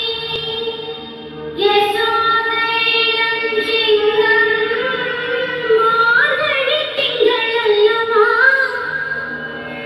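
Dance song: a woman singing a melodic line with sliding ornaments over a steady drone, the voice coming in strongly about a second and a half in.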